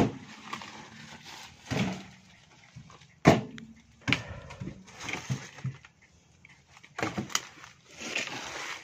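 Cashew-wood firewood logs being lifted and dropped onto the load of a three-wheeled cargo truck: irregular wooden knocks and thuds, a few seconds apart.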